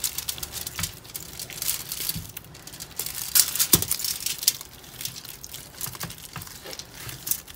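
Aluminium foil crinkling and crackling under gloved hands moving and pressing raw chicken pieces on a foil-lined baking tray, with irregular soft taps and crackles, busiest in the middle.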